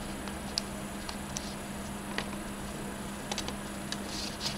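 Faint handling noises: scattered small clicks and rustles of paper and plastic as the PowerUp power module's plastic clips are slid onto the nose of a folded paper aeroplane.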